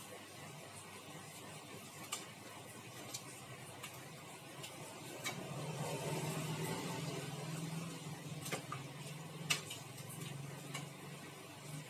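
Close-up eating sounds: scattered clicks and crunches of chewing on boiled chicken heads. A low steady hum comes up about five seconds in and runs under them.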